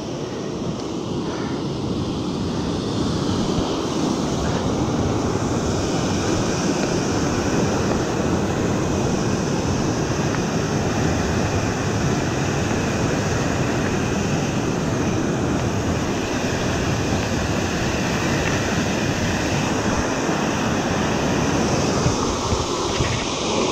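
Steady rushing wind noise on the handlebar-mounted camera's microphone as a mountain bike is ridden along, with a faint steady whine that comes in partway through.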